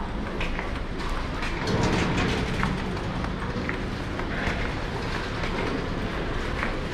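Steady rumble of a metro train running close by, swelling for about a second some two seconds in, with footsteps on a hard stone floor.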